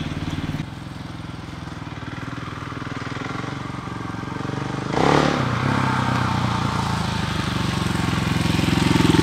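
Dual-sport motorcycle engine running and getting louder as the bike rides in, with a sudden louder burst about halfway through. The exhaust note is one that nothing else sounds like.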